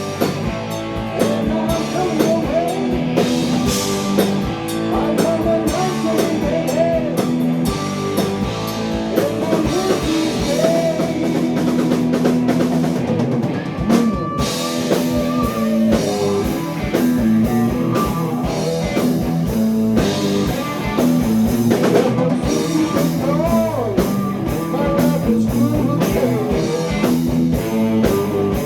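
A live hard-rock blues band playing full on: a drum kit and electric guitar over a steady bass line, with guitar notes that bend up and down.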